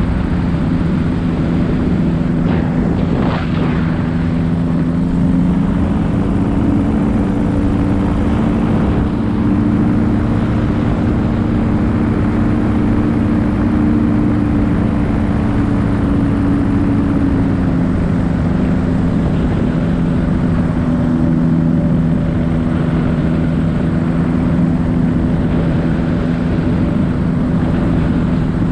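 Paramotor engine and propeller running steadily in flight, with wind rushing over the microphone. The engine note rises slightly about five seconds in and eases back down about twelve seconds later.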